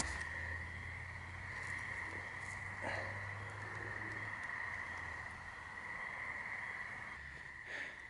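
Crickets chirping steadily in one continuous high trill, with a low hum that fades out about halfway through and a single faint knock about three seconds in.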